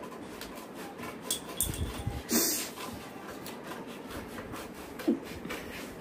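Scissors cutting through paper, with the sheet rustling as it is turned. A few louder knocks and a short sharp burst come about two seconds in, and one more short sharp sound near five seconds.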